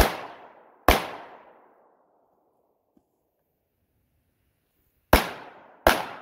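Four pistol shots fired as two pairs about four seconds apart, each shot followed by an echo that fades over about a second.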